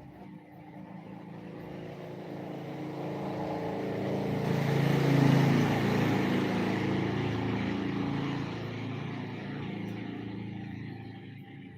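A motor vehicle driving past: its engine grows louder to a peak about five seconds in, then fades away.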